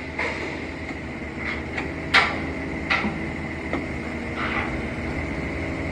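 Chains clanking and clinking in a series of sharp metal strikes as they are pulled in, the loudest a little after two seconds in, over the steady hum of an idling forklift engine.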